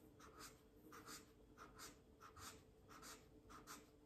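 Faint scratching of a black marker pen on paper, drawn in quick short strokes, about two to three a second, as rows of feather lines are sketched.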